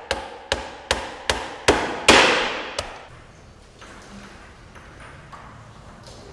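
Hammer striking a wooden frame, about seven sharp blows at roughly two and a half a second, the loudest about two seconds in. The blows stop about three seconds in, leaving a low room background.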